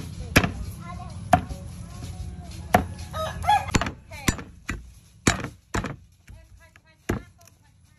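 Heavy cleaver chopping lemongrass stalks on a thick round wooden chopping board: about nine sharp chops at uneven spacing.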